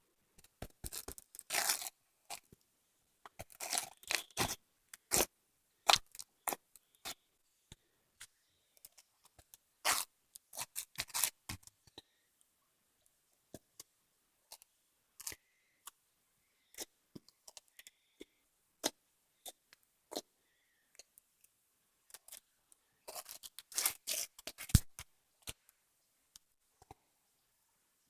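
Slime being played with by hand: irregular crackling pops and clicks, coming in several short clusters with scattered single clicks between.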